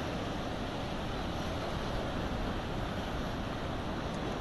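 Storm surf from an approaching hurricane breaking and washing up over a flooded beach, with wind on the microphone: a steady rushing noise.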